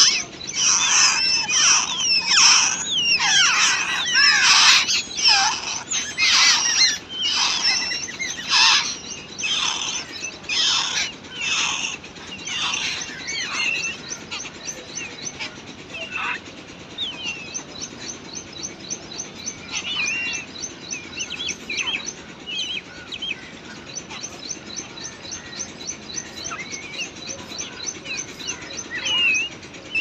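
Babblers calling at a nest with chicks. A run of loud, harsh calls repeats less than a second apart for about the first twelve seconds, then quieter scattered chirps follow over a fast, high-pitched ticking series.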